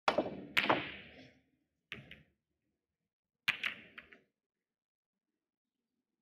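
Snooker break-off. The cue strikes the cue ball with a sharp knock, and about half a second later a louder clack comes as the cue ball hits the pack of reds. Fainter clicks of balls meeting each other and the cushions follow about two seconds in and again around three and a half to four seconds.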